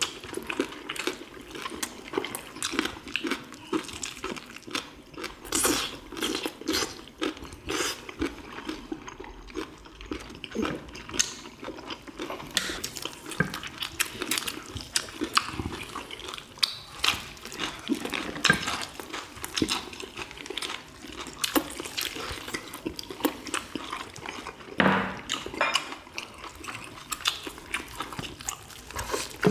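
Wet chewing and lip-smacking of several people eating boiled chicken, with the soft meat being pulled apart by hand; a steady run of small wet clicks and smacks, with the odd clink of a dish.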